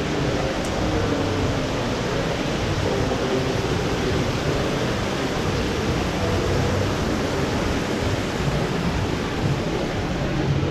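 Steady splashing of water from a large tiered indoor fountain cascading into its pool.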